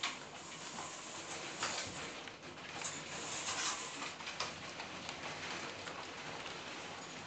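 Steady rain falling during a thunderstorm, with scattered sharper ticks of drops striking a nearby surface.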